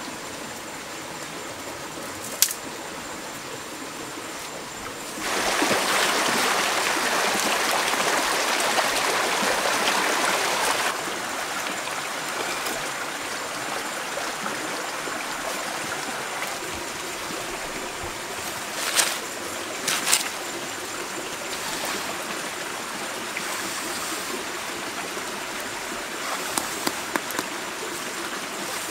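River water flowing over stones in a steady rush, louder for about five seconds near the start. A few sharp clicks and knocks stand out: once early, twice about two-thirds of the way through, and a quick run of them near the end.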